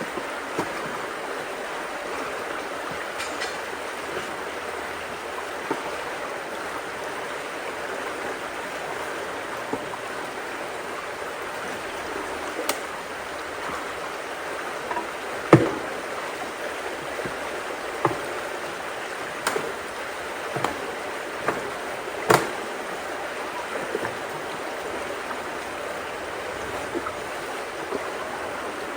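Water rushing steadily through a culvert swollen with rainwater, with scattered knocks and clicks. The loudest knocks come about halfway through and again about three-quarters through.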